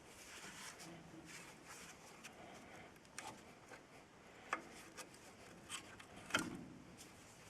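Faint rubbing and scraping, then a handful of short, sharp knocks, the loudest about two-thirds of the way in.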